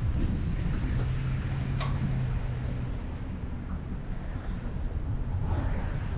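Low, steady rumble of a car's engine and tyres at low speed. A low hum runs from about one to three seconds in, and there is a single sharp click about two seconds in.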